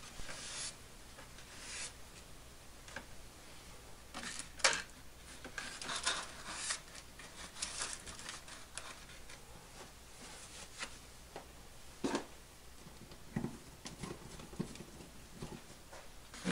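Hands handling model-airplane parts on a workbench: scattered light rustles, scrapes and soft taps, with a sharper click about four and a half seconds in.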